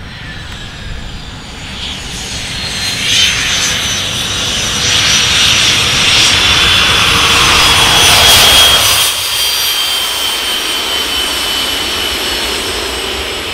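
Jet engine mounted on the back of a semi truck, running as the truck rolls slowly past: a high whine over a steady rush that grows louder to a peak about eight or nine seconds in, then eases off.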